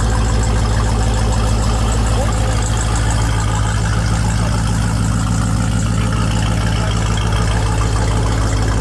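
A Jeep Grand Cherokee SRT's V8 idling steadily, heard close to its quad exhaust tips as an even, low rumble.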